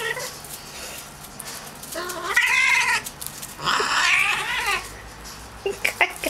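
Domestic cat yowling as a rabbit mounts it: two long, wavering caterwauls of about a second each, the second starting a moment after the first.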